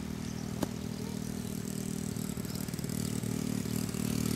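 A small engine running steadily, growing louder toward the end, with a single sharp click a little over half a second in.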